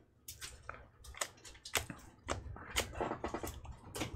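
Baseball cards and foil card packs being handled by hand: a run of irregular clicks, taps and crinkles as cards are shuffled and packs are picked up.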